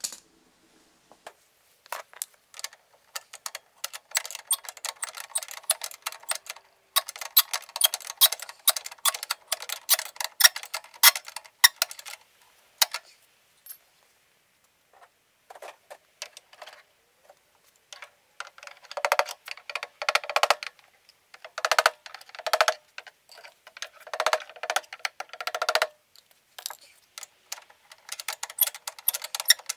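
Ratchet wrench clicking in quick runs, with a near-quiet pause around the middle, as bolts are tightened during reassembly of the heater.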